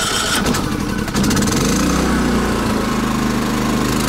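Champion 3400-watt dual-fuel portable generator, fed from a propane tank, just started on the electric-start button with the choke pulled. It runs unevenly for the first second, then picks up and settles into a steady run with economy mode off.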